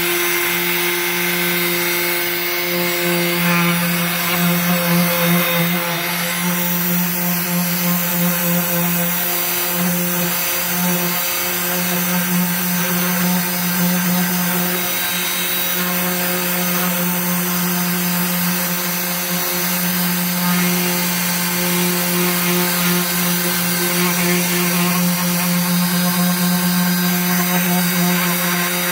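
Orbital hand sander running steadily: a constant motor hum under the rasp of the pad sanding acrylic paint off a wooden board.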